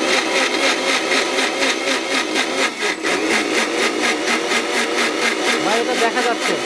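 Electric mixer-grinder with a stainless-steel jar running at speed, grinding dried red chillies into a paste. The motor whirs loudly and steadily with a fast, even flutter.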